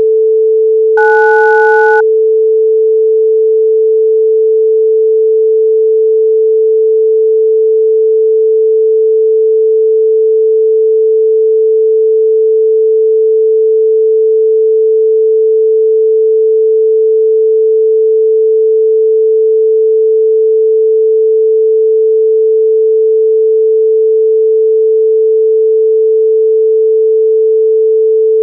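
Electronically generated pure tone held at one unchanging mid pitch. About a second in, two higher pure tones sound with it for about a second and then cut off abruptly.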